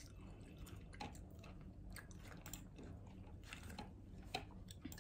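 Quiet chewing of food, with light clicks and scrapes of a spoon in a plastic bowl.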